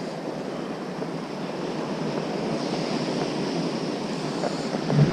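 Small waves washing up on a sandy beach, a steady rushing surf with some wind on the microphone.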